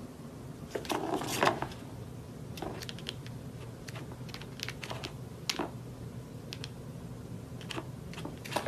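Irregular light plastic clicks and knocks from a circular cat track toy, its ball rattling and bumping along the plastic track as a cat paws at it.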